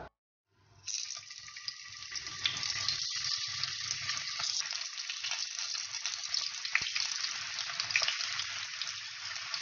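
Sliced potatoes frying in hot olive oil in a non-stick pan: a steady crackling sizzle full of small pops, starting about a second in and growing louder as more slices go into the oil.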